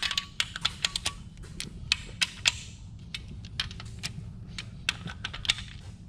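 Hand ratchet clicking in quick, irregular strokes as it runs in a bolt fastening a steel motor mount to an engine block, with light metal clinks among the clicks.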